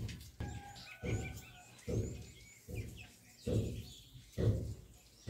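Small birds chirping in the background, over soft low thumps that come about once a second as rice is mixed and mashed by hand on a steel plate.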